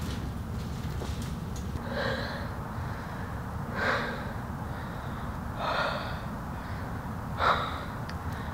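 A person breathing heavily: four loud breaths about two seconds apart, over a steady low rumble.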